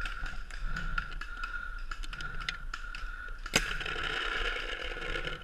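Paintball markers firing in scattered pops, with one sharp, loud shot about three and a half seconds in, over a steady thin high whine and some rustling.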